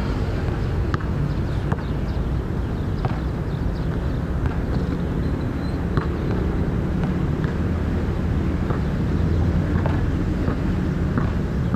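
Steady low rumble, with a basketball's sharp bounces on the hard outdoor court coming through now and then at an uneven pace.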